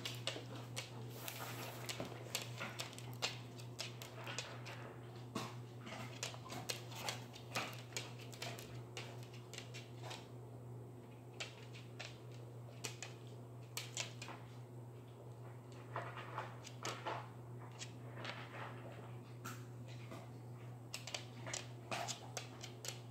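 Scattered light taps, scuffs and rustles as two cats move about a cardboard box on a hardwood floor, over a steady low hum.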